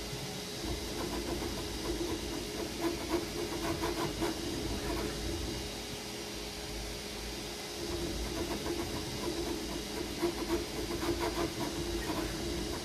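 Creality Ender 3 V3 KE 3D printer printing: its stepper motors whir in two busy stretches of quick moves over the steady hiss of its cooling fans.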